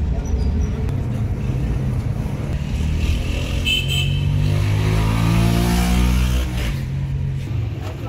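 Car engine running, rising steadily in pitch as it accelerates from about three seconds in, then dropping back near the end. A short high-pitched tone sounds briefly about four seconds in.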